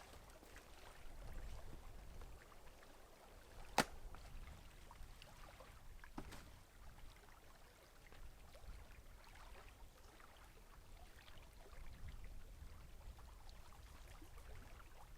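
Faint water sounds of trickling and dripping, around a canoe, over a low rumble. A single sharp knock comes about four seconds in, with a smaller click a couple of seconds later.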